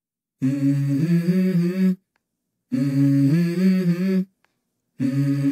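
Intro of a song: wordless hummed vocal phrases, three short phrases of a few stepped notes each, separated by brief silent gaps.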